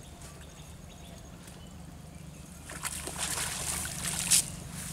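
Water splashing and streaming off a cast net's mesh as it is hauled out of a pond. It starts a little past halfway and ends in one sharp, loud splash near the end.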